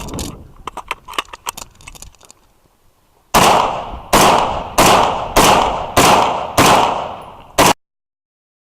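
.223 rifle shots. A quick run of fainter shots is followed by seven loud shots about two-thirds of a second apart, each with a ringing echo. The sound cuts off abruptly after the last shot.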